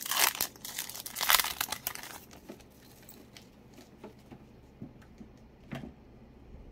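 Foil wrapper of a Pokémon card booster pack being torn open and crinkled for about two seconds. Then it goes much quieter, with only a few faint taps.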